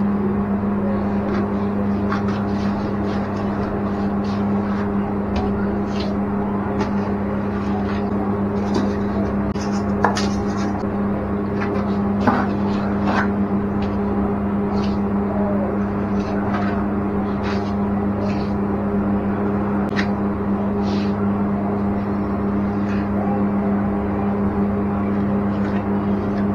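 A steady low hum runs throughout, with scattered short scrapes and taps of a trowel and hands working cement mortar into a tiled wall around a shower valve.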